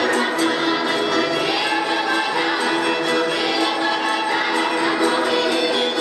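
A folk choir singing a Russian traditional song in chorus, holding notes in several voices over a regular percussive beat.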